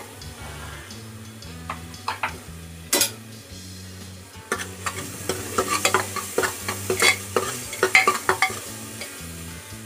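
A metal spoon stirring and scraping thick masala frying in an aluminium pressure cooker, with a run of quick scrapes and clicks in the second half, over a light sizzle. One sharp knock about three seconds in.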